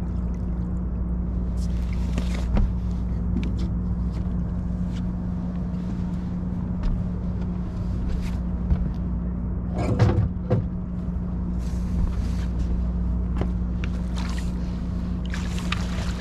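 A hooked flathead catfish splashing at the surface beside a boat, in scattered bursts that grow thicker over the last few seconds as it is netted. Under it runs a steady low mechanical hum.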